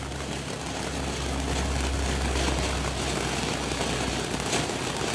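FP4712 Colosseo ground fountain firework spraying sparks: a steady rushing hiss with a low rumble beneath it, and a few crackles. The rumble drops away about four seconds in.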